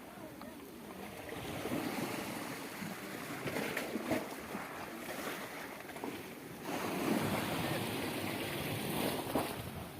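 Sea waves breaking and washing up a beach in slow surges: one builds about two seconds in, and a bigger one comes from about seven seconds.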